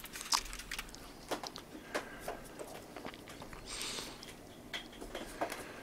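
Faint, scattered clicks and taps of a small paintbrush dabbing cold blue solution onto a steel ball peen hammer head, with a short scratchy brushing sound a little before four seconds in.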